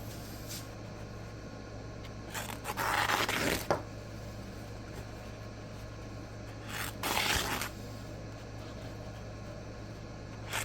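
Freshly sharpened K110 steel knife edge slicing through loosely held paper twice, each cut a raspy scraping tear about a second long. The coarse, toothy edge off a 400/800 grit CBN plate is one the sharpener calls super aggressive.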